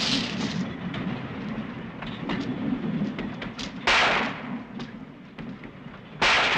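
Film battle sound effects: a low rumble with scattered sharp cracks, broken by a sudden loud blast of gunfire about four seconds in and another near the end.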